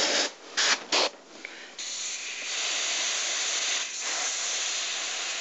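Double-action airbrush spraying black paint: a few short spurts of air hiss, then a steady continuous spray hiss from about two seconds in.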